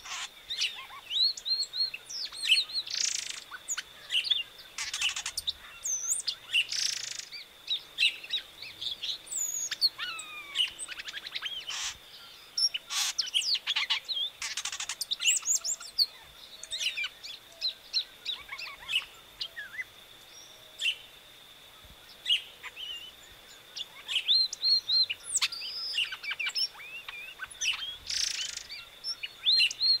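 Variable oriole singing: a long, varied string of quick whistled notes and rising and falling glides, mixed with short rasping notes, with a brief lull past the middle. A faint steady high whine runs underneath and stops about four-fifths of the way through.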